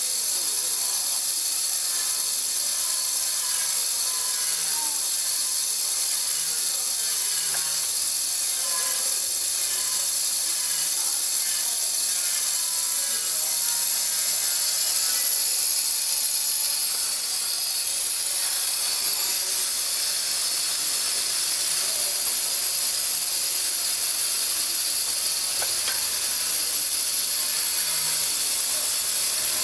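Prefilled syringe filling machine running: a steady high hiss with regular mechanical clicking and clunking from its indexing mechanism.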